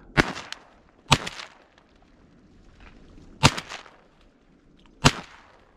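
Four shotgun shots from duck hunters, the first two about a second apart and the last two about a second and a half apart.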